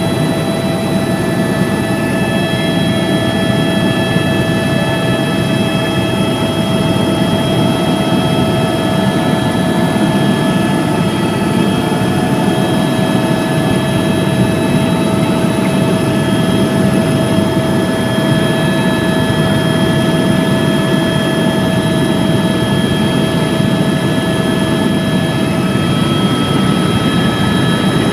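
Helicopter in flight: a steady, loud rotor and engine rumble with several high, steady whining tones over it.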